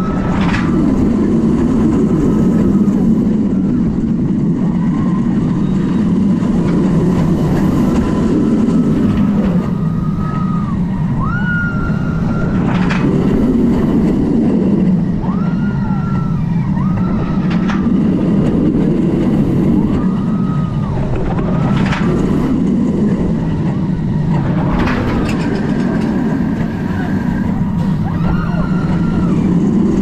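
Mako, a steel B&M hyper coaster, with its train running along the track: a loud rumble that swells and fades, short rising and falling whines over it, and a few sharp clacks.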